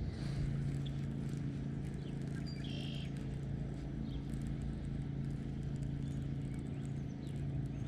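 Kayak motor running with a steady low hum as the kayak moves across the lake, with one short high chirp about three seconds in.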